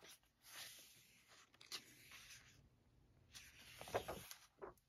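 Faint rustling of paper: a softcover coloring book's pages being handled and turned, in a few short soft swishes.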